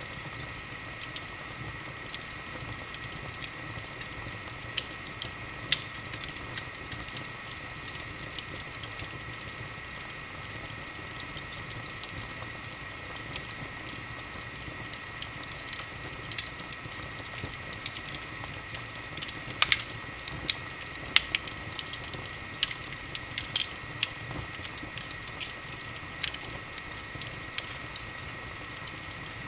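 Wood fire burning in an open fireplace, crackling with irregular pops and snaps over a steady hiss; the pops come thicker and louder about twenty seconds in. A faint steady high whine sits underneath.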